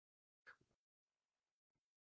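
Near silence: the live-stream audio is all but cut out between phrases.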